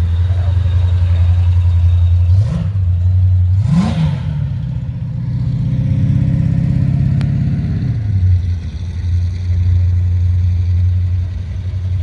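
Car engine idling, revved in two quick blips about two and a half and four seconds in, then held at higher revs for a couple of seconds before dropping back to idle.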